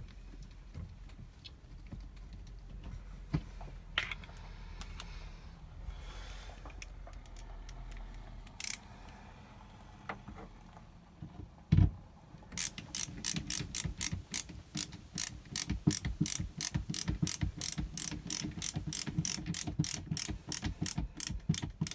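Hand ratcheting screwdriver clicking in a fast, even run, about four clicks a second, as a screw is driven into a caravan window blind's corner fixing. A single thump comes just before the clicking starts, with only scattered clicks before it.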